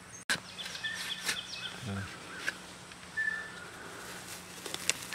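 Potato fork working through dry, clumpy garden soil, giving scattered clicks and knocks, while birds chirp faintly in the background.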